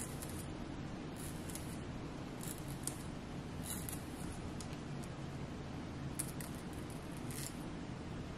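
A fine-tooth edge comb drawn through the hair at the hairline, making a string of short, soft scratching strokes, irregularly spaced, over a steady low room hum.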